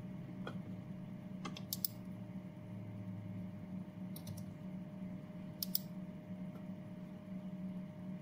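A handful of short, sharp clicks on a computer keyboard in small groups, a single one, then pairs and a quick run of three, over a steady low hum.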